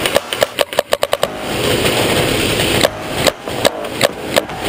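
Paintball markers firing in rapid strings, about six shots a second. The strings break for about a second and a half in the middle, filled with a steady hiss.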